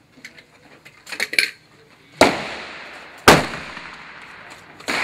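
A few light metal clicks as the parts of a .308 AR-type rifle are worked apart, then two loud gunshots about a second apart, each echoing under the range's roof, and a third shot near the end.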